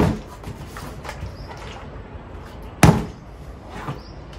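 A partly filled plastic bottle landing on a tabletop in a bottle flip: one sharp knock about three seconds in, fading quickly.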